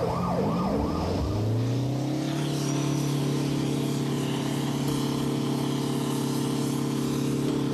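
Airport crash fire truck's diesel engine revving up over the first second or so, then running steadily at high revs.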